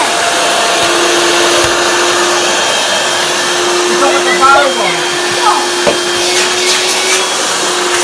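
A 1977 Hoover Celebrity Deluxe S3001 canister vacuum cleaner running steadily, with a loud rush of motor and airflow. A steady hum note joins it about a second in.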